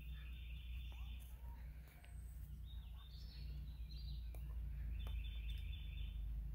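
Woodland songbirds singing high, fast trilled phrases: one at the start, more in the middle, and another in the last second and a half. A steady low rumble runs underneath.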